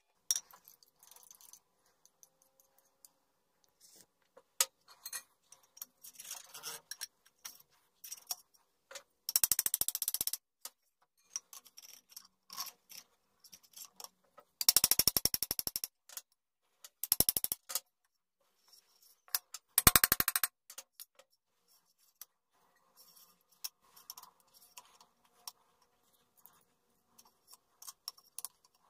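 Steel parts of a DIY chisel-sharpening jig being handled and fitted together by hand: light clinks and taps of metal on metal, with four short bursts of fast, even clicking, the loudest about 15 seconds in.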